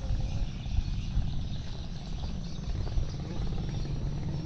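Low, fluctuating rumble of wind buffeting the microphone over the steady hum of a van engine idling.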